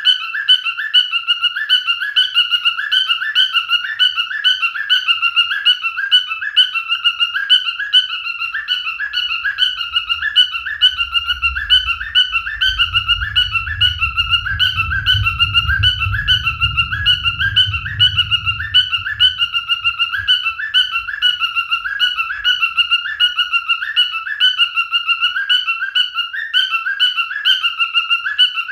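Male cockatiel whistling its song, a short rising-and-falling whistled figure repeated over and over at an even pace. A faint low rumble sits underneath through the middle.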